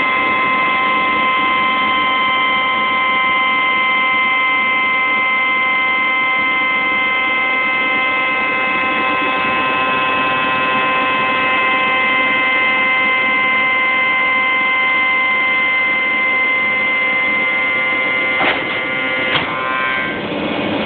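A CNC router spindle runs with a steady high whine of several held tones over a noisy rush while a face mill cuts textolite. Near the end there are two sharp clicks, and the whine falls away.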